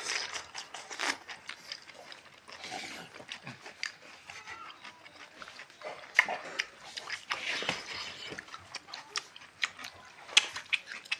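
Mukbang eating sounds from several people eating rice and meat with their hands close to the microphone: wet chewing and lip-smacking, with many quick smacks and clicks throughout.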